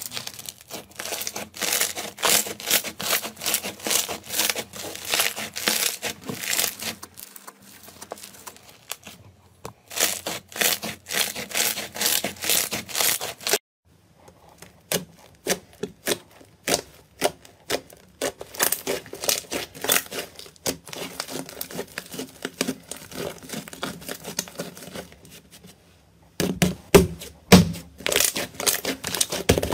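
Thick foam slime with a bumpy, bead-like texture squeezed and pulled by hand, giving a dense, fast crackling and popping. After a brief silence about 14 s in, a soft clay-like slime is pressed and kneaded, with sparser clicks and small pops and a few louder, deeper pops near the end as air pockets are squashed.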